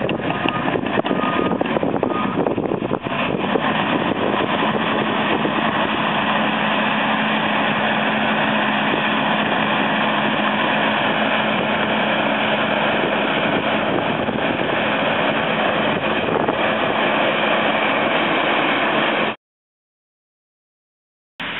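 Caterpillar D6K crawler dozer's diesel engine and tracks running steadily as the blade pushes soil, with a reversing alarm beeping evenly through the first two seconds or so. The sound cuts off suddenly for about two seconds near the end.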